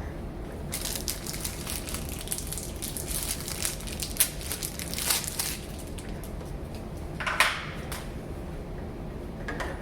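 Small scattered clicks, taps and scrapes of a deadbolt's metal lock parts and mounting screws being handled and fitted by hand, with one louder scrape about seven and a half seconds in.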